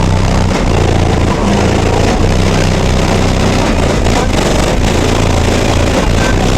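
Six Sundown Audio X12 subwoofers in a car's flat-wall build play the beat of a rap track at very high volume. The deep bass overloads the microphone into a constant, distorted wall of sound.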